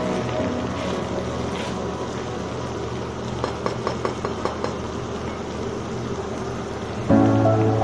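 A steady low hum, with a quick run of about six light clicks a little past the middle as a metal spatula knocks against the pan while stirring the vegetables. Music starts up near the end.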